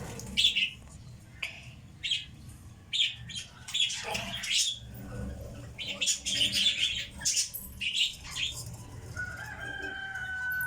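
Pet lovebirds chirping: short, sharp, high-pitched calls repeated every second or so. A steady held tone starts near the end.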